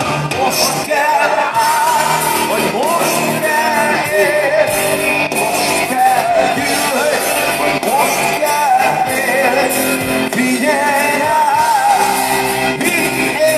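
Live rock band playing loudly through a concert hall's PA, heard from the audience: guitars and drums with a wavering lead melody over them.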